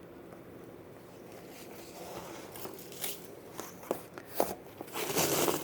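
Dresses and their packaging being handled: soft rustling with a few sharp clicks in the second half, and a louder rustle near the end.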